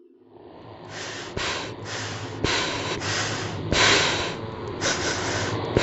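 A person breathing hard and fast, each breath a harsh rush of air, fading in over the first second, over a low steady hum.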